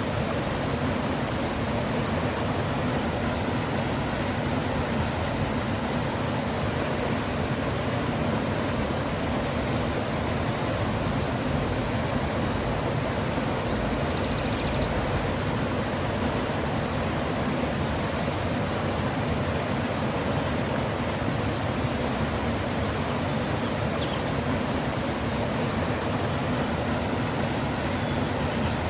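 Mountain river flowing: a steady, even rush of water. Over it, a high, short chirp repeats evenly about three times a second, pausing near the end.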